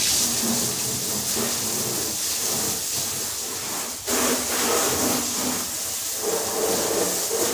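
Water from a garden hose spraying onto a car's body, a steady hiss of splashing water, with a short break about four seconds in.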